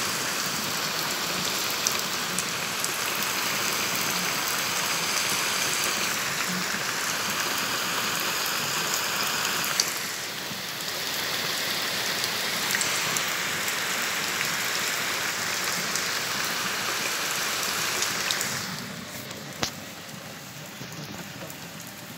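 Torrential rain pouring down in a steady dense hiss, with scattered drop hits. It dips briefly about ten seconds in and becomes noticeably quieter about nineteen seconds in, with a single sharp click just after.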